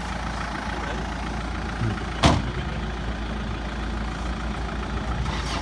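Off-road 4x4 engine running steadily at a low idle, with a single sharp knock about two seconds in.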